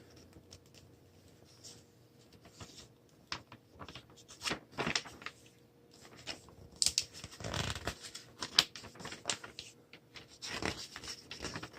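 Pages of a paper instruction booklet being handled and turned: scattered rustles and light clicks, with a couple of longer page-turning rustles in the second half.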